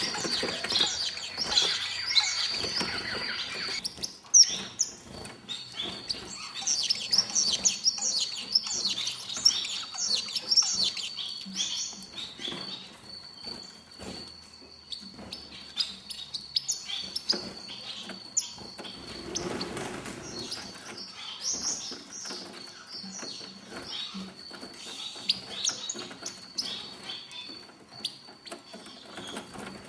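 Star finches calling, many short high chirps overlapping from several birds, busiest in the first dozen seconds and sparser after that.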